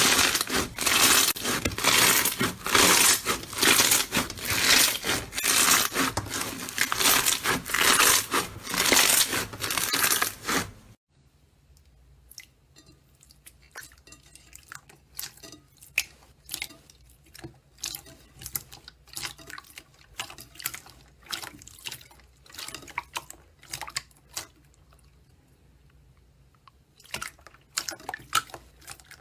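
Slime being squeezed and worked by hand: dense, loud crackling and popping that cuts off suddenly about eleven seconds in, followed by soft, sparse little pops and clicks, then louder crackling again near the end.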